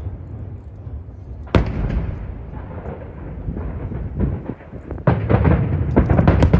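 Aerial fireworks bursting: one sharp bang about a second and a half in, a rumble of booms, then a rapid run of bangs from about five seconds in.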